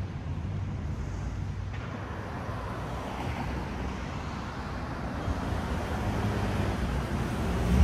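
Street traffic: cars driving past on a multi-lane city street, a steady hum of road noise that swells slightly as a car goes by near the end.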